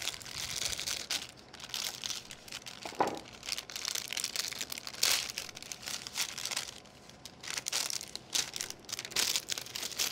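The wrapping of a rolled pie crust crinkling in irregular bursts as it is unwrapped and unrolled by hand, with a single soft knock about three seconds in.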